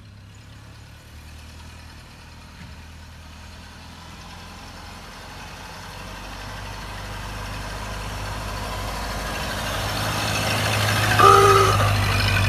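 Ford Model A's four-cylinder engine running as the car approaches and passes close by. Its hum grows steadily louder, and a short pitched tone sounds near the end as it goes by.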